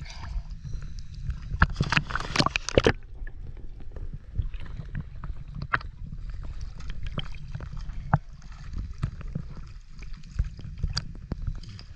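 Sea water sloshing and splashing at the surface over a steady low rumble, with a burst of sharp splashes about two seconds in.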